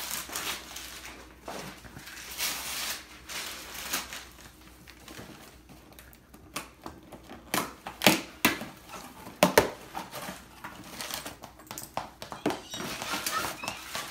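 Wrapping paper rustling as a gift is unwrapped. About halfway through comes a run of sharp taps and knocks as a cardboard box and its contents are handled on a table.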